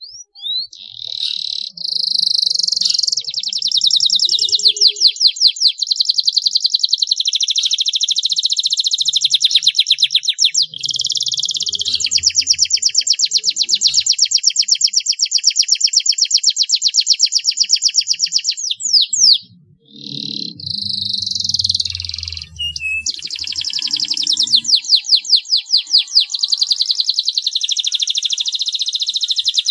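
Domestic canary singing long, very fast rolling trills, broken once by a short pause about two-thirds of the way through before the song resumes.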